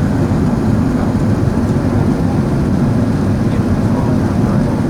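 Steady low rumble of airflow and engine noise inside the cabin of an Airbus A380 airliner on its descent.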